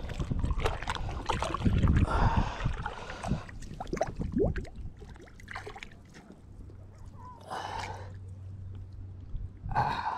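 Water sloshing and splashing around legs wading in shallow water, busiest in the first few seconds, then quieter with a few short splashes.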